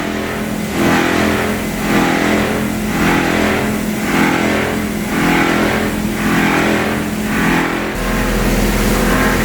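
Copper wire chopping plant machinery running: a steady mechanical hum with a whooshing noise that swells and fades about once a second. Near the end the sound changes and a deep low rumble comes in.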